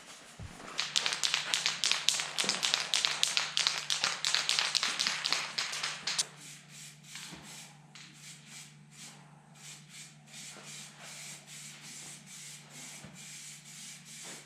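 Sanding by hand on a metal body panel: fast, hard rubbing strokes for the first few seconds, then lighter strokes a couple of times a second. A steady low hum runs underneath.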